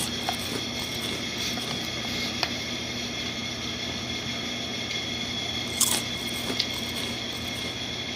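A person chewing food with a full mouth, with a few short sharp clicks, over a steady hum in the room.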